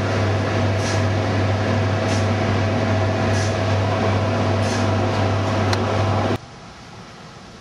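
Steady, loud mechanical hum with a deep drone and a faint held whine, cutting off abruptly about six seconds in to a much quieter background.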